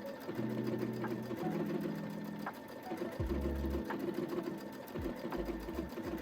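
Brother Innov-is V5 sewing machine running and stitching steadily, its needle going at a fast, even rate, with soft background music underneath.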